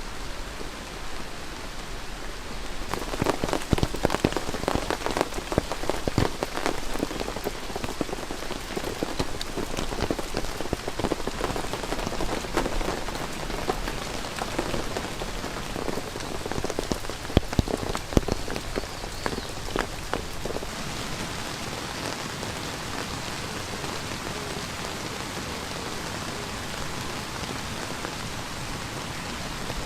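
Heavy rain drumming on an all-cotton canvas tent, a dense patter of drop hits over a steady rushing hiss. The hits come thickest through the first two-thirds, then settle into a more even patter.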